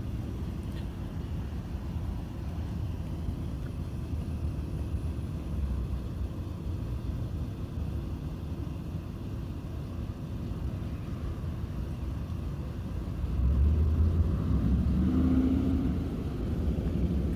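Steady low rumble of motor vehicles, with no speech. It swells louder for a few seconds about thirteen seconds in, then eases back.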